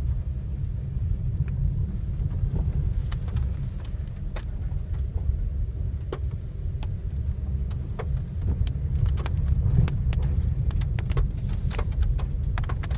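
Car moving along unpaved Howland Hill Road, heard from inside the cabin: a steady low road rumble with many scattered sharp knocks and taps on top.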